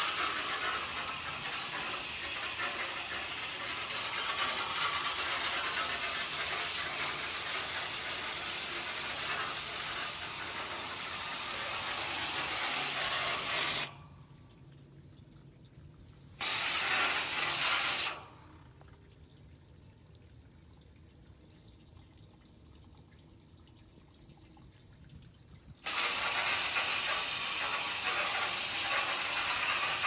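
Straight-stream jet of water from a garden hose nozzle spraying into the fins of a central air conditioner's outdoor condenser coil, washing out caked dirt. The spray stops about 14 seconds in, runs again for under two seconds, stops for about eight seconds, then starts again near the end.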